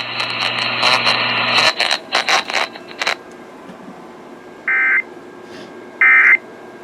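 Weather radio hissing and crackling with static clicks for about three seconds, then two short, identical digital data bursts about a second and a half apart: the SAME header tones of the NOAA Weather Radio / Emergency Alert System that open a new alert.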